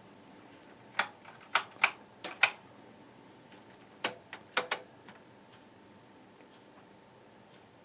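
Front-panel rotary switch knobs of a Tektronix 485 oscilloscope being turned, clicking through their detents: five sharp clicks in quick succession starting about a second in, then three more about four seconds in.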